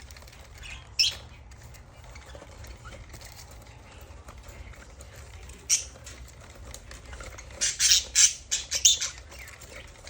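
Budgerigar giving short, shrill squawks: one about a second in, another near six seconds, then a quick run of several around eight seconds. A steady low hum runs underneath.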